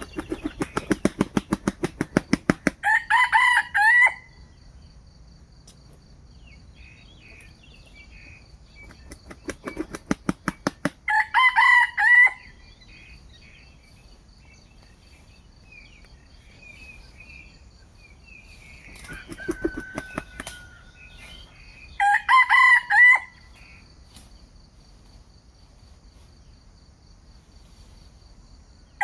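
A junglefowl rooster claps its wings in a rapid burst and then crows a short, clipped cock-a-doodle-doo. It does this three times, about ten seconds apart.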